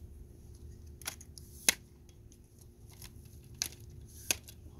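Flip-lock leg clamps on a Victiv T72 tripod being snapped open and shut, a run of sharp clicks with lighter rattling between; the loudest snap comes about a second and a half in.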